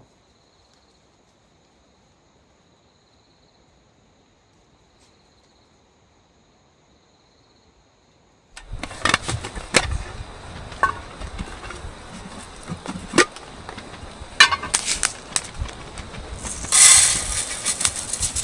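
Near silence for about eight seconds, then strong wind gusting, with scattered sharp knocks and rustles and a louder rushing gust near the end.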